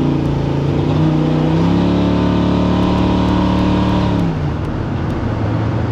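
7.0-litre LS7 V8 of a 1967 Chevy C-10 running hard under way, its note stepping up in pitch twice, holding steady, then dropping away about four seconds in.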